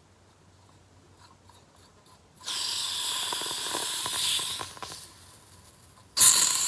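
Gas hissing out of a camping-stove fuel canister's valve as the stove is threaded onto it, escaping before the stove seals. One hiss of about two seconds starts a little over two seconds in, and a second one starts near the end.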